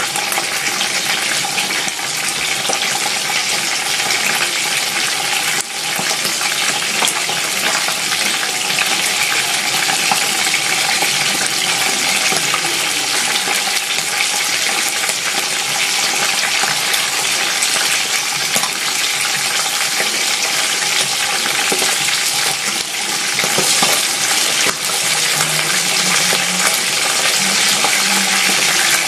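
Hot oil sizzling steadily, with small crackles and pops, as two butterflied dried milkfish (dinaing na bangus) fry in a pan.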